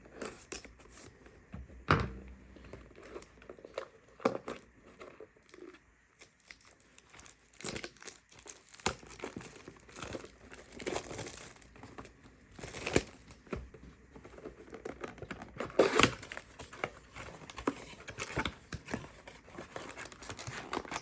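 Plastic wrapping of trading-card blaster boxes and card packs being crinkled and torn open by hand: irregular rustling and crackling, with louder tears about two, thirteen and sixteen seconds in.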